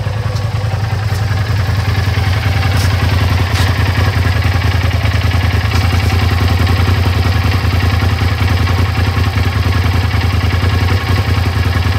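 Polaris RZR Pro XP side-by-side's twin-cylinder engine idling steadily, heard close to the exhaust, with a few light ticks.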